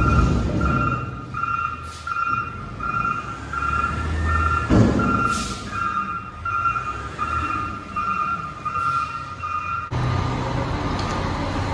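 Garbage truck ejecting its load into a transfer-station pit: diesel engine running and trash thudding down, with one heavy thud about five seconds in, over a vehicle backup alarm beeping about twice a second. Near the end the beeping stops and a steadier truck engine sound takes over.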